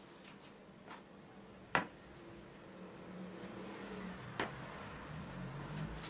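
Quiet handling sounds as a thin sheet of rolled pastry dough is laid over another on a wooden board. There are two sharp knocks, one a little under two seconds in and one about four and a half seconds in, over a low steady hum that grows slightly louder in the second half.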